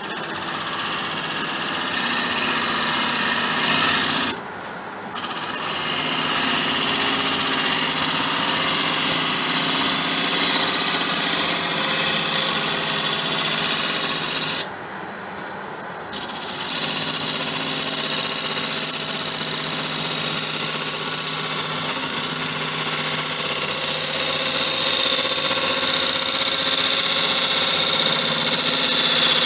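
Bowl gouge taking a finishing cut on a spinning acacia bowl on a wood lathe: a steady hiss of wood being shaved, over the low hum of the lathe's motor. The cutting stops briefly about four seconds in and again about fifteen seconds in, as the tool comes off the wood.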